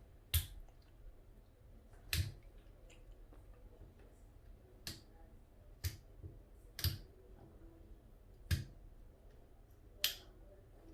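Metal pick tool clicking against a bathroom sink's pop-up drain strainer while picking debris out of it. About seven short, sharp clicks come irregularly, one to two seconds apart.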